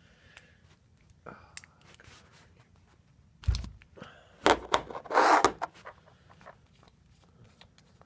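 Small carburetor parts handled on a wooden workbench: scattered light clicks, a knock on the table about three and a half seconds in, then a brief burst of scraping and rustling just after the middle.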